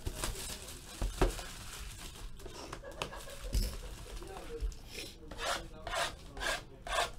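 Cellophane shrink wrap being torn off a cardboard trading-card hobby box, then the box opened and the foil packs handled: crinkling and rubbing with a sharp click about a second in and a run of short rustles near the end.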